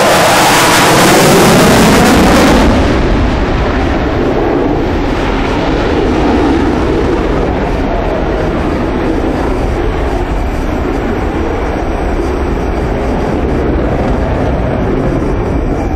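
Eurofighter Typhoon's twin EJ200 turbofan jet engines in a close, loud pass, the sound sweeping down in pitch and cutting back sharply about two and a half seconds in, then a steady rumble as the jet draws away.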